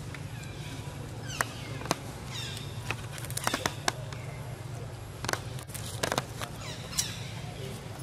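Infant long-tailed macaque squeaking: several short, high squeals that fall in pitch, the densest cluster about halfway through. A few sharp clicks are heard too.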